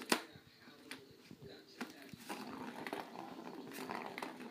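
A plastic ball clattering around the round plastic track of a turbo scratcher cat toy as a cat's paw bats it. The loudest sharp clack comes right at the start, a couple of lighter clacks follow, and in the second half the ball rolls steadily around the track.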